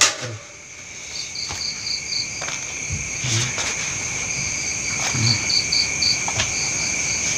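Crickets and other night insects: a steady high trill with runs of short, quick chirps repeating every second or two, and a few soft knocks.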